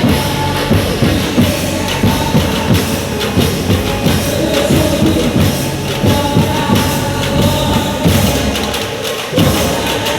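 Music with a busy, steady percussion beat under held instrumental tones.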